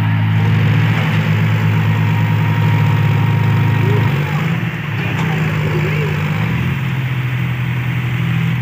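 John Deere farm tractor's diesel engine running loudly, its speed shifting about four seconds in and again near six and a half seconds.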